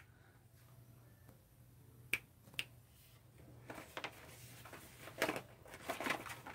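White slime clicking and popping as it is pressed and squeezed by hand. There are two sharp clicks about two seconds in, then a run of crackling pops in the last few seconds.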